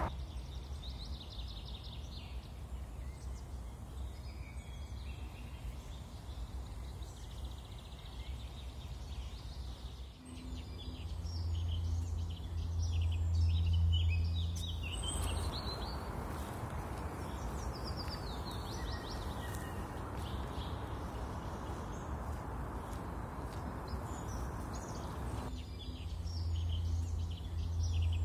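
Small birds chirping over outdoor background noise. A low hum swells twice, and a steady rushing noise cuts in for about ten seconds in the middle.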